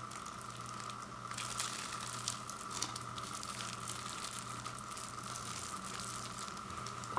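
Plastic wrapping of a frozen pizza crinkling and rustling as it is handled and pulled open, starting about a second in, over a steady background hum.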